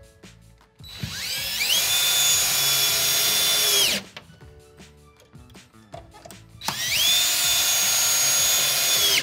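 Cordless drill driving screws into wooden blocking between studs, in two runs of about three seconds each: the motor winds up in pitch, then holds a steady whine until it stops; the second run is still going at the end.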